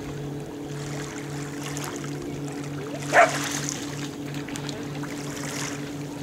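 A motor running steadily at idle, a low hum that pulses a few times a second. A brief, sharp chirp about three seconds in is the loudest sound.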